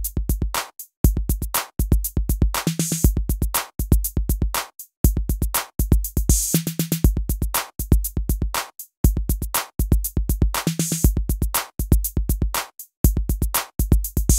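Electronic intro music: a fast drum-machine beat with deep bass, in phrases of about two seconds broken by short gaps.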